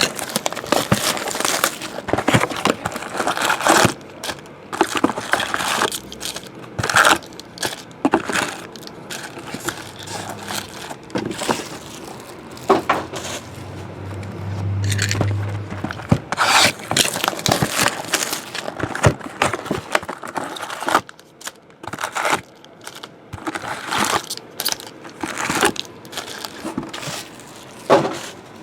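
Cardboard card boxes being handled, slid and stacked on a table: irregular scrapes, knocks and crinkling, with a brief low hum around the middle.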